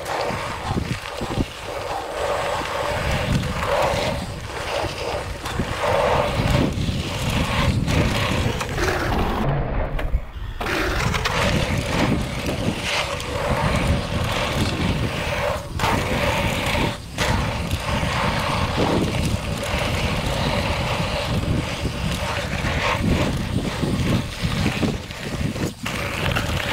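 Scott Genius 950 mountain bike descending a dry dirt singletrack: continuous wind rush over an action-camera microphone mixed with tyre noise on dirt and the bike rattling over the bumps. The hiss drops out briefly about ten seconds in.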